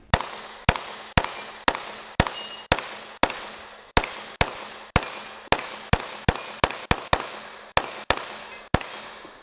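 Semi-automatic pistol firing a long string of about nineteen shots at a steady pace of roughly two a second, each crack followed by a short echo. The last shot comes about a second before the end.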